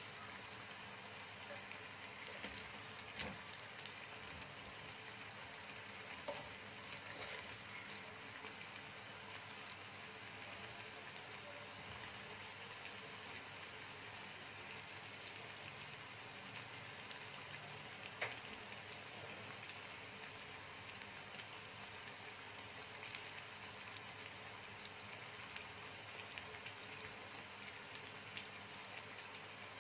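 Battered pieces frying in a pan of hot oil: a steady sizzle with scattered sharp crackles and pops.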